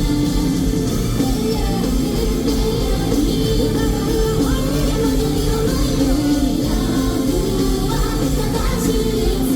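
Live J-rock band playing a song: a female lead voice sings over electric guitar, bass, drums and keyboard.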